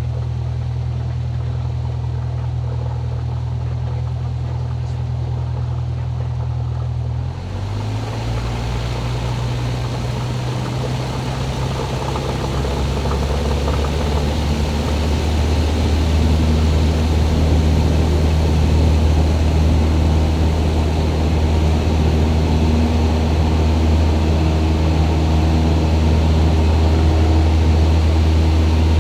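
Cessna 172's four-cylinder piston engine and propeller heard from inside the cabin: steady low running, then the pitch shifts abruptly about seven seconds in and the engine builds over several seconds to a louder, steady full-power drone, as the throttle is opened for takeoff.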